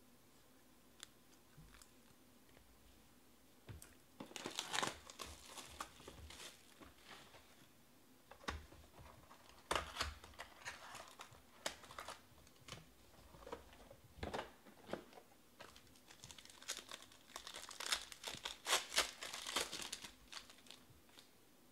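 Hands opening a Panini Obsidian basketball card box and tearing open a card pack wrapper: short bursts of crinkling and tearing that start a few seconds in and are loudest near the end.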